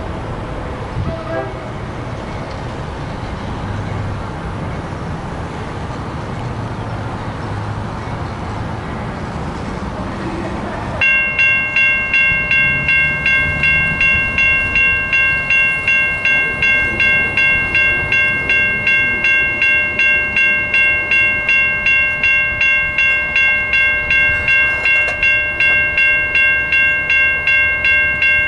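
A train rumbles low for the first part. About a third of the way in, a railroad bell starts ringing steadily, about two strokes a second, and keeps ringing.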